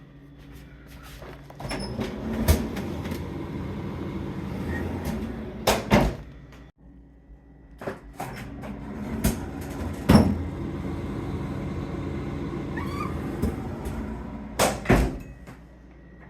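Refrigerator doors being opened and shut: several sharp thumps, two of them in quick pairs, over the steady low hum of the running GE refrigerator, just back in service after a refrigerant leak repair.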